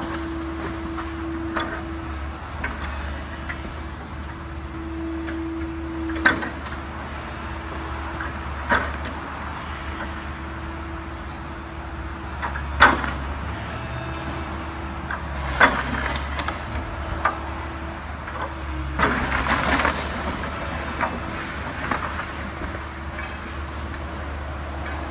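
Heavy demolition machinery running with a steady low engine drone, broken by several sharp cracks and knocks of a house's wooden structure giving way. A short rush of crashing noise comes about three-quarters of the way through.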